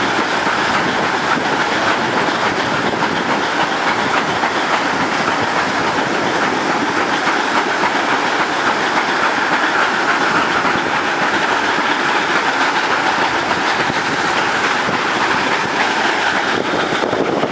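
Long rake of empty steel sugar cane bins on a narrow-gauge cane tramway rolling past, with a steady clatter of wheels over the rails.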